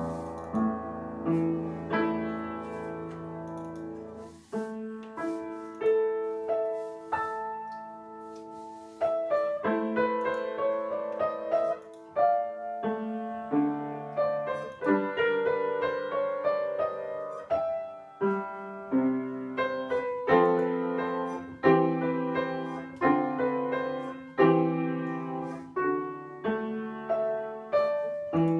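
Upright piano played by a child: a sustained chord at the start, then a slow melody with rising runs of notes about ten and fifteen seconds in, and from about eighteen seconds on a run of regularly struck chords.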